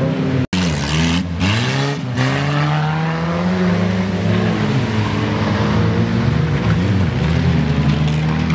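Wreck-race car engines revving hard, the pitch dipping and climbing again as the cars accelerate; the sound cuts out for an instant about half a second in.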